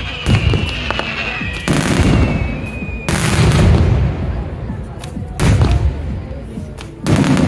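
Aerial fireworks shells bursting in a display: about five loud booms, one every second and a half to two seconds. Over the first three seconds a high whistle slowly falls in pitch.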